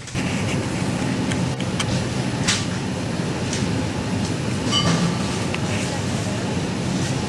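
Steady rumbling, rattling noise of a moving vehicle, beginning abruptly and carrying scattered sharp clicks and rattles, with faint voices in the background.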